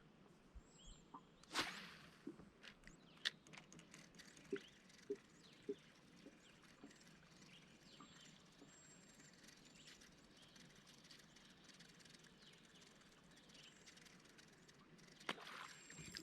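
Near silence with faint bird chirps and scattered small clicks and knocks, one louder knock about a second and a half in.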